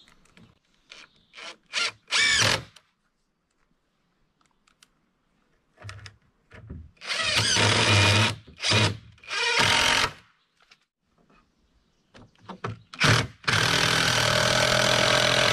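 Cordless impact driver driving screws into wood: several short bursts, then a longer run of about two seconds near the end, as it screws 2x2 stop blocks onto the bed frame's swinging legs.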